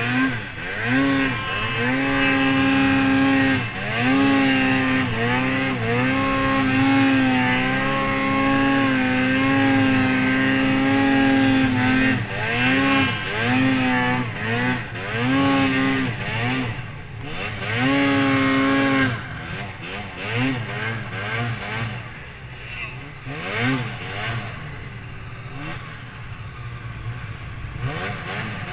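2018 Arctic Cat Mountain Cat snowmobile's two-stroke engine running hard in deep powder, with repeated quick throttle dips and blips. About 19 seconds in it comes off the throttle and runs quieter, with a few short revs near the end.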